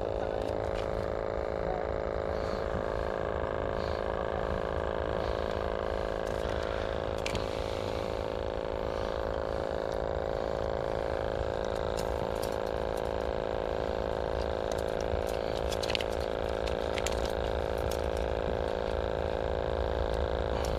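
Steady motor hum with several even tones, over light clicks and rattles of fishing tackle being handled.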